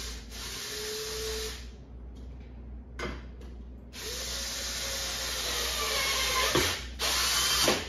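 Cordless drill driving small screws up into a wooden shelf: three runs of the motor, the first about a second and a half, a longer one in the middle with the motor's pitch rising and then falling, and a short, louder run near the end. A single sharp click comes between the first two runs.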